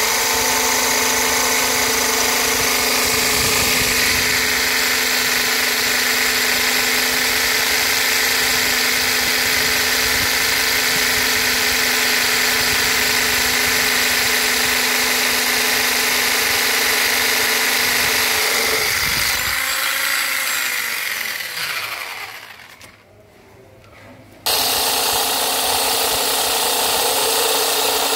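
A motorised core drill runs steadily as its cylindrical bit grinds into stone. About two-thirds of the way through the motor winds down with a falling pitch and goes nearly quiet for about two seconds. Then the steady running sound starts again suddenly at full level.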